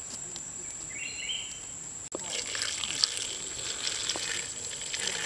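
Garlic, lemongrass and other aromatics sizzling and crackling in a hot wok over a wood fire, the crackle setting in about two seconds in after a quieter start.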